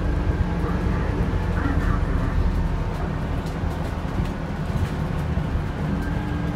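Scania Citywide LFA city bus heard from inside the passenger cabin: a steady low engine and drivetrain rumble with a constant hum, and light rattles from the cabin. A short squeak comes about two seconds in.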